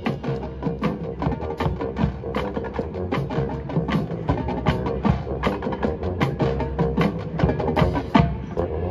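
Marching band percussion section, drumline and front ensemble, playing a fast rhythmic passage of sharp clicks and drum hits over sustained low notes, with a loud hit near the end.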